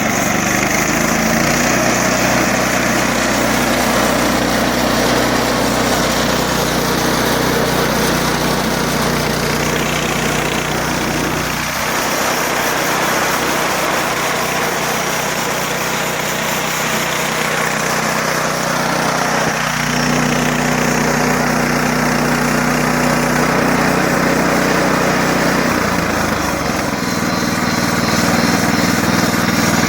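Harbor Freight band sawmill's gas engine running steadily. Its pitch shifts a few times: about 12 seconds in, about 20 seconds in, and again near 27 seconds.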